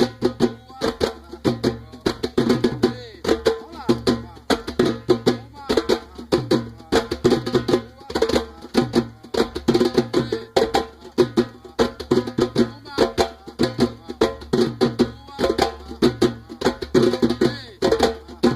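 Percussion music played on a timbal, the Brazilian hand drum: a fast, steady pattern of sharp hand strokes that keeps going without a break.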